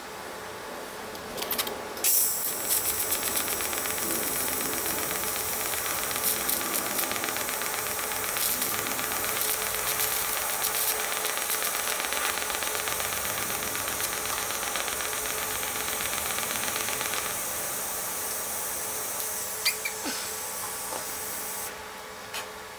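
TIG welding arc on a cast iron part, melting in a cast iron filler rod: a steady, crackling hiss that starts abruptly about two seconds in and cuts off shortly before the end.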